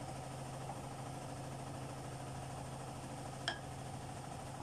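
A steady low hum, with a single sharp clink about three and a half seconds in.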